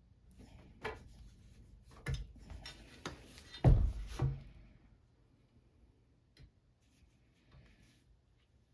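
Clicks and knocks of hand tools and Olympic barbell parts being handled, about half a dozen sharp ones from about one to four and a half seconds in, the loudest near the middle; after that, faint room tone.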